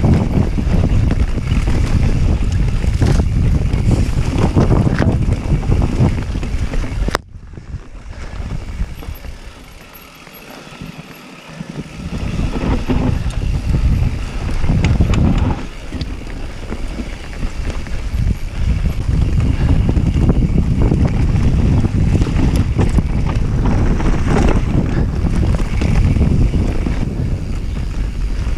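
Mountain bike descending dirt forest singletrack: wind rumbling on the camera microphone over tyres rolling on dirt and leaf litter, with knocks and rattles from the bike over roots and bumps. The noise drops away suddenly about seven seconds in and builds back up a few seconds later.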